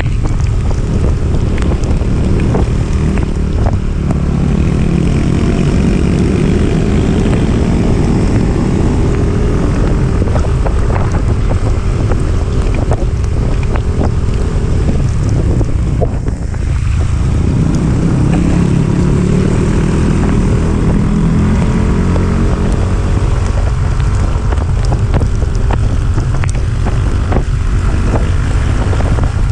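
Motorcycle engine pulling uphill under heavy wind buffeting on the microphone, its pitch rising and falling with the throttle, with a brief dip about halfway through.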